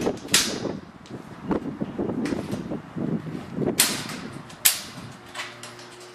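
Metal scooter-rack ramp being wiggled and knocked against its bracket to work the locking pin into its hole: an uneven run of sharp knocks and clunks over a low rattle, the loudest knocks about four and five seconds in.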